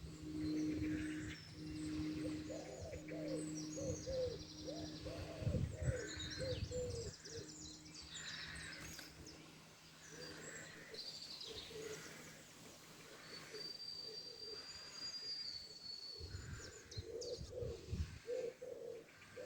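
Small birds chirping and singing, with pigeons cooing in short repeated low phrases, one bird holding a long high whistle near the middle. A low steady hum fades out in the first seven seconds.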